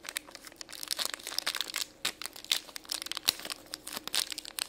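A crinkly yellow wrapper being unwrapped and crumpled by hand to free a small toy figure: a dense run of irregular crackles and rustles.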